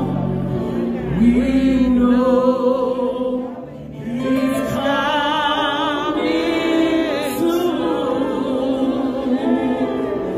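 A woman singing a gospel song live into a microphone, holding long notes with a wavering vibrato over instrumental backing, with a short break between two phrases about three and a half seconds in.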